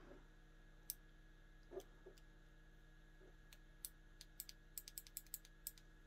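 Faint small clicks from an analog thumb joystick module being moved and pressed by hand: a single click about a second in, then a scattered run of clicks over the last two seconds, over near silence with a faint steady hum.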